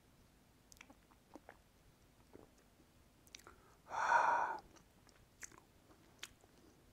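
Faint wet mouth sounds, small lip smacks and tongue clicks, as a taster chews a sip of rum around his mouth. About four seconds in comes one short, louder breath out, the loudest sound here.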